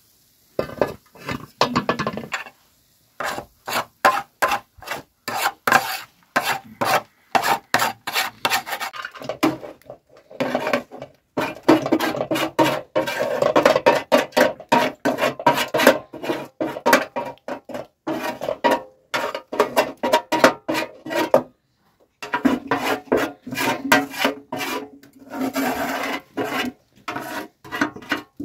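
Metal spoon scraping a cooked filling off a round metal tray into a metal cooking pot, in quick repeated rasping strokes with a few short pauses.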